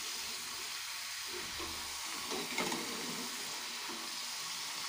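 Rice-flour kurkure sticks deep-frying in hot oil in a steel kadhai: a steady, soft sizzle, with a steel slotted spatula stirring through them.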